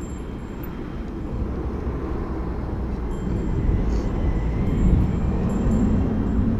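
Wind buffeting the microphone of a camera on a moving mountain bike, mixed with tyre noise on asphalt. It is a steady low rumble that grows louder from about three seconds in.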